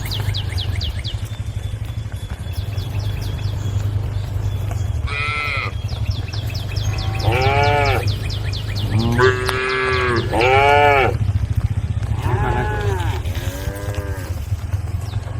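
A group of cattle in a pen mooing: about six separate rising-and-falling calls from about five seconds in, over a steady low hum.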